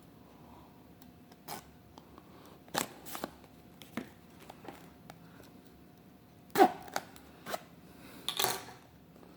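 A cardboard trading-card box being handled and opened by hand: scattered light taps, clicks and scrapes, with a sharper knock about six and a half seconds in and a short rustling scrape about two seconds later.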